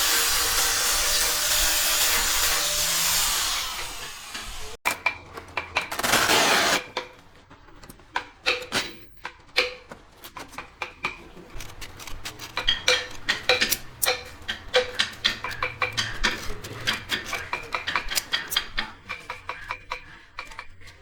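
A woodworking power tool runs steadily for about four seconds, stops suddenly and runs again briefly. Then comes a long run of small knocks, taps and scrapes of hand work on wood.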